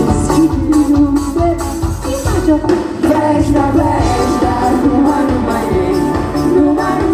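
Live pop music with a singer over a steady beat.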